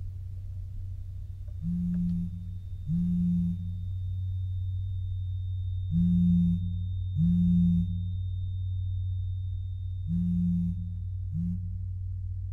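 Low electronic beeps in pairs, each about half a second long with the two a little over a second apart, the pair repeating about every four seconds over a steady low hum. A faint thin high whine runs through the middle.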